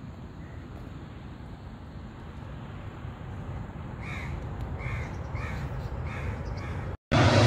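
Distant jet airliner rumbling on the runway just after touchdown, swelling slightly in the second half. Over it a bird calls five times in quick succession, each call short and sharp. The sound cuts out abruptly near the end.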